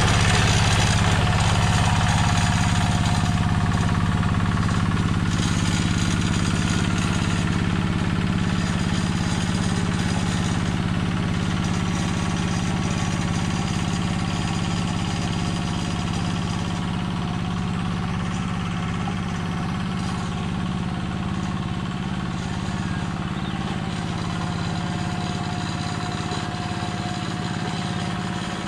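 Yanmar two-wheel hand tractor's single-cylinder diesel engine running steadily under load while plowing a flooded rice paddy, slowly growing fainter as the tractor moves away.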